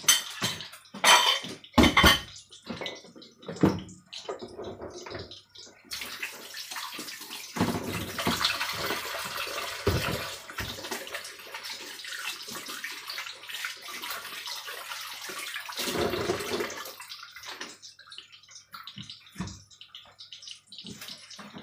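Minced pork and shrimp patties sizzling in hot oil in a frying pan. There are a few sharp knocks in the first few seconds, and a louder, steady hiss from about a quarter of the way in to near the end.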